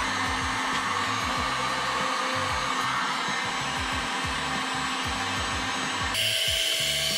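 Electric heat gun blowing a steady stream of hot air into a plastic ski boot shell to soften it. About six seconds in, the hiss changes character abruptly.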